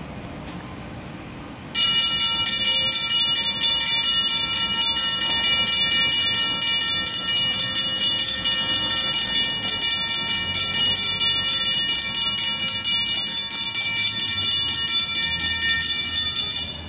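Two Safetran hybrid railroad crossing bells ringing with rapid, evenly repeated strikes. They start suddenly about two seconds in and cut off just before the end. They ring while the crossing gates are lowering and stop once the gates are down.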